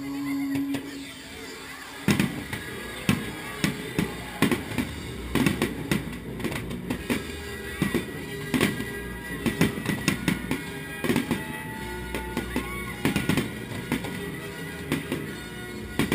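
Aerial fireworks shells bursting overhead in a quick series of bangs, several a second, starting about two seconds in, with music playing underneath.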